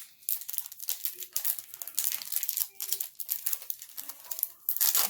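Foil wrapper of a Pokémon booster pack being torn open and crinkled by hand, an irregular crackling.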